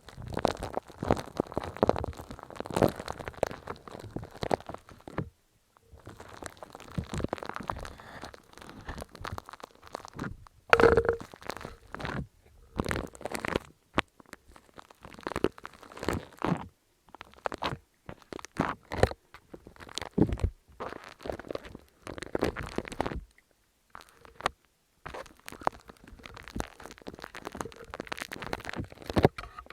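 Close-miked ASMR handling sounds: bursts of wet, crackly squishing and crunching, in clusters of a second or two with short silent pauses between them.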